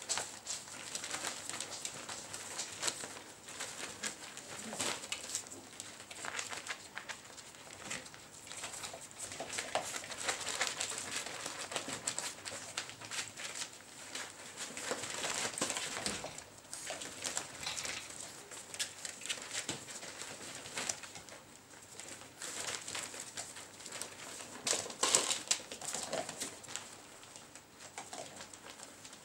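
A litter of poodle puppies at rough play: a plastic sheet crinkling and rustling as they tug at it, paws scrabbling on the floor, and now and then small squeaks and grumbles from the pups. The loudest scuffle comes near the end.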